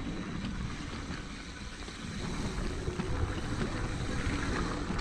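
Mountain bike rolling fast down a dirt trail: steady tyre rumble over the dirt with frequent small rattles from the bike over bumps, and wind buffeting the camera microphone.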